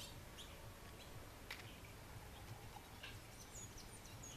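Near silence: faint outdoor ambience with a few soft clicks, and short, high bird chirps in the last second.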